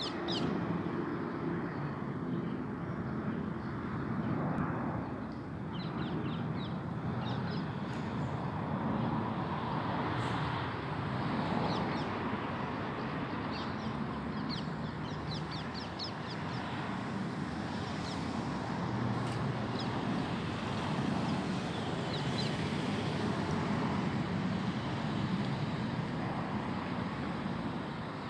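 Steady distant rumble of a British Airways Boeing 787-9's Rolls-Royce Trent 1000 jet engines as the airliner climbs overhead, blended with road-traffic hum. Small birds chirp in short runs several times.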